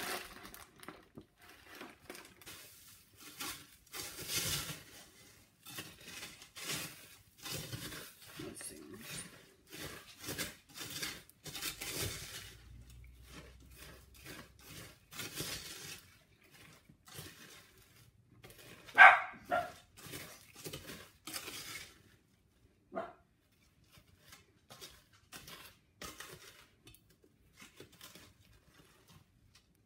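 Cereal being stirred through sticky melted marshmallow in a stainless-steel bowl: irregular crackly scraping and rustling strokes that thin out after about two-thirds of the way. A short, sharp pitched squeal about two-thirds in is the loudest sound, with a fainter one a few seconds later.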